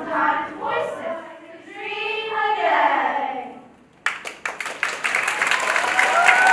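Girls' voices singing the closing phrase of a song, ending on a long held note that fades away. About four seconds in, the audience breaks into applause that keeps going. Near the end, music with sustained tones starts under the clapping.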